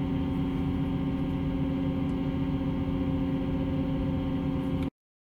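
Steady machinery drone of the Merrimac Ferry, a cable ferry pulling itself along its cables, heard inside with the windows closed: a low rumble with a constant hum. It cuts off abruptly near the end.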